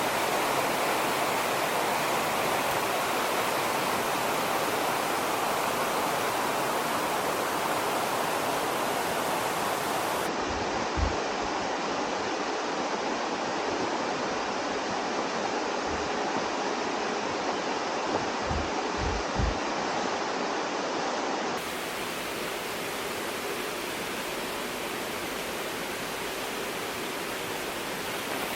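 Steady rushing noise, most like flowing water. A few soft low thumps come in the middle, and the character of the noise changes abruptly twice.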